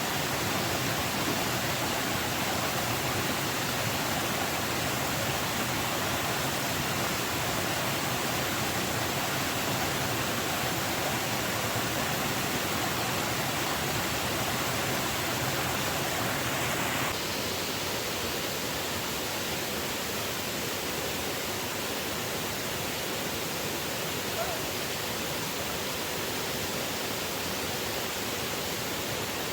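Steady rushing noise of water, changing and dropping slightly about seventeen seconds in.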